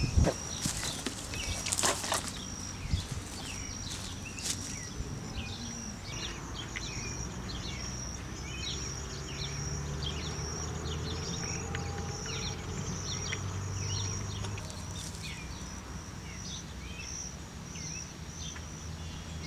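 Outdoor ambience: a steady high-pitched insect drone, with many short bird chirps over it and a low hum underneath.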